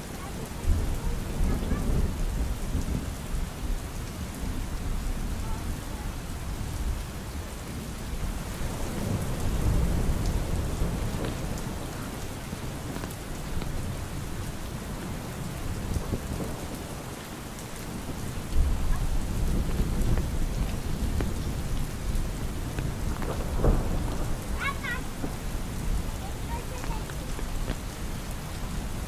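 Steady rain falling, with deep rolls of thunder swelling and fading several times.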